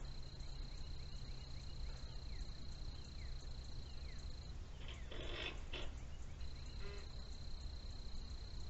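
Outdoor ambience with a steady low rumble and a steady high-pitched whine that drops out for a couple of seconds midway. Faint short descending chirps come in the first half, then a harsh animal call about five seconds in and a short call near seven seconds.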